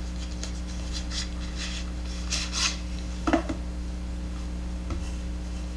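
Handling noise from a folding pocket knife being turned in the hands: a few soft rubs and scrapes and a light click, over a steady electrical hum.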